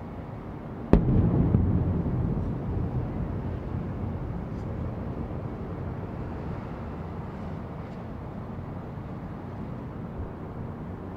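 A firework shell bursting in the sky: one sharp boom about a second in, followed by a low rumble that dies away over several seconds.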